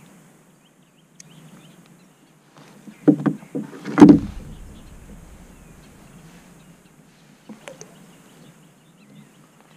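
A few sharp knocks and one heavier, deep thump about four seconds in against the hollow plastic hull of a fishing kayak while a small bass is handled and unhooked, followed by a few faint small clicks.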